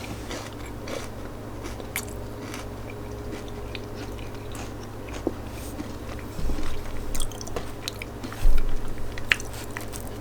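Close-up chewing and crunching of food, with short crackly bites throughout and louder bites about six and a half and eight and a half seconds in.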